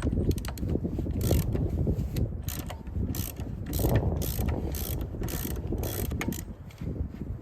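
Hand ratchet wrench clicking in a series of short strokes, undoing bolts on a mini excavator's bucket mount, over a steady low rumble.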